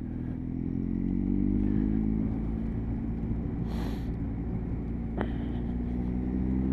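Motorcycle engine accelerating on the road: its note rises, levels off, then climbs again after a brief click about five seconds in. A short hiss comes a little before that.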